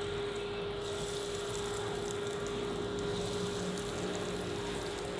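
Breadcrumb-coated chicken balls deep-frying in hot oil: a steady bubbling sizzle, with a steady hum alongside that fades near the end.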